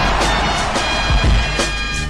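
Loud, distorted music clip from a meme sound-effects pack, a droning, buzzy sound over heavy bass.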